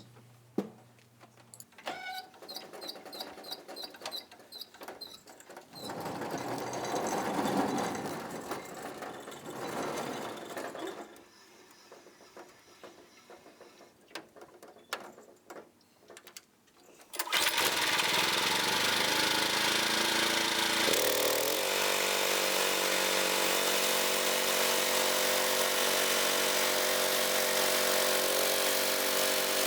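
Scattered clicks and knocks of the portable band sawmill and log clamps being handled. About halfway in, the sawmill's gasoline engine starts abruptly and runs steadily, then rises in pitch a few seconds later and holds at a higher speed.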